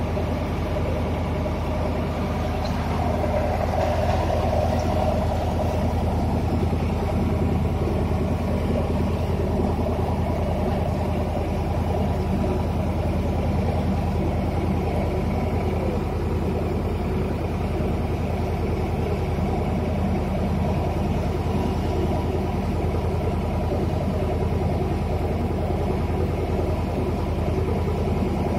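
A boat's engine running steadily at cruising speed while the boat is under way.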